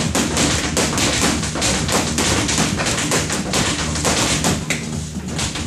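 Boxing gloves smacking into focus mitts in quick combinations of punches, over background music with a steady bass line.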